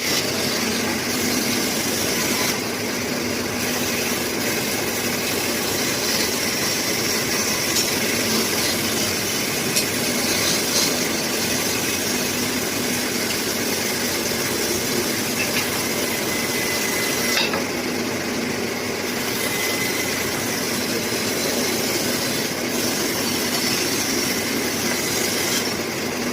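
Sawmill saw running and cutting through a log, a steady loud mechanical drone with a faint high whine and a few brief clicks.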